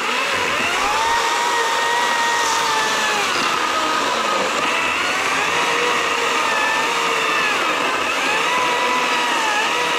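Stihl MSA 120 C battery-powered electric chainsaw cutting steadily through a thick log. The motor's whine dips in pitch and recovers several times as the chain bites into the wood.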